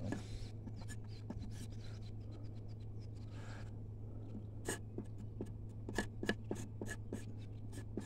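Knife blade scraping along a sisal leaf on a wooden board, stripping the green pulp off the fibres in short repeated strokes. The strokes are faint at first, then from about halfway come stronger and regular, about three a second.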